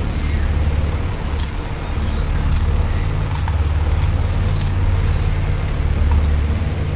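Steady low rumble of motor traffic, with a few faint, light metallic clicks as a loose motorcycle timing chain is handled.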